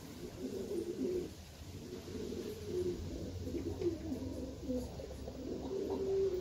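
Miro pigeons cooing, one low coo after another throughout.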